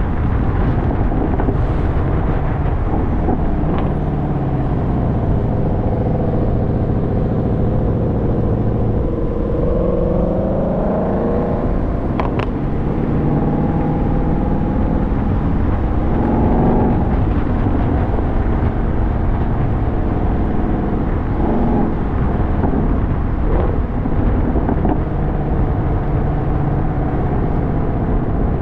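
Car driving on the road with a steady loud rumble of engine and road noise. The engine note rises as it accelerates about a third of the way through, and shifts again a little past the middle.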